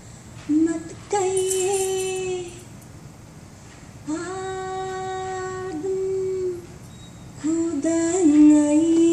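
A girl singing solo without accompaniment, the opening of a qawwali-style song: three long phrases of held notes with short pauses between them, the last one the loudest.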